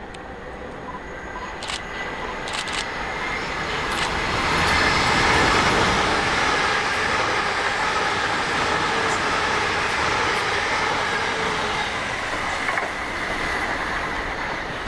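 Passenger train passing at speed, its wheels and running gear building to a loud, steady rush over about five seconds, then slowly easing. A few sharp clicks come about two seconds in.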